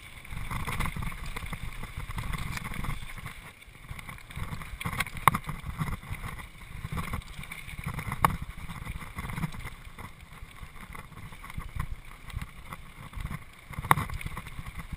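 Mountain bike riding fast over a dirt trail: tyre rumble and wind buffeting the microphone, with sharp rattles and knocks from the bike going over bumps, the strongest about five, eight and fourteen seconds in.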